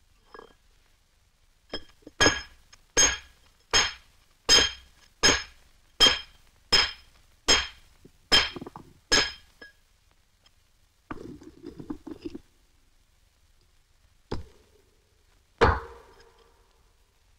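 Hammer striking a chisel into stone: about a dozen even, ringing blows, roughly one every three quarters of a second, then a short rasping scrape, then two more single blows.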